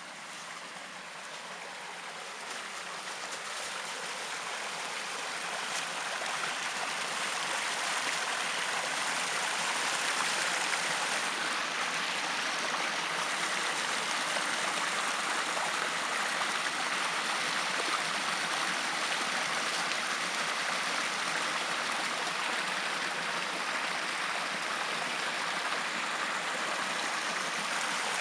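Stream water running and babbling, an even rushing sound that grows louder over the first several seconds and then holds steady.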